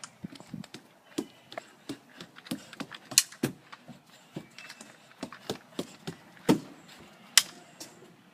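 A run of irregular light knocks and clicks, with a few sharper, louder knocks among them.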